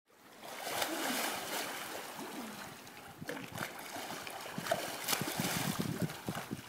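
Water splashing and churning as a child swims in a pool, with a run of quick small splashes through the second half.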